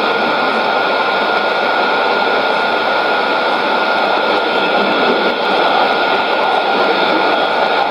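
Shortwave AM static and hiss from a Sony ICF-2001D receiver tuned to 11835 kHz, with a steady whistle running through it and no programme audio standing out above the noise.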